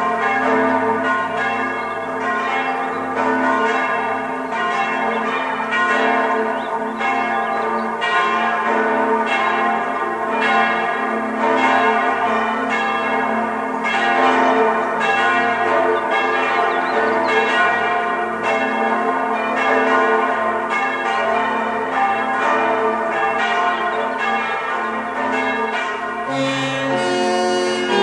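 Church bells pealing: several bells struck in turn, their strikes coming about once a second and overlapping into a continuous ringing.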